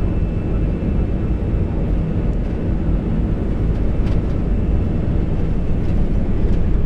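Airbus A320 on its takeoff roll at takeoff thrust, heard in the cockpit: a steady low rumble from the engines and the wheels on the runway, growing slightly louder as the aircraft gathers speed.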